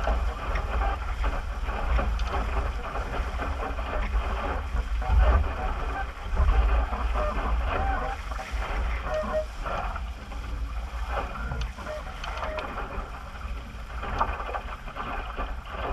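Wind gusting across the microphone over water rushing and splashing along a small sailboat's hull as it sails in strong wind.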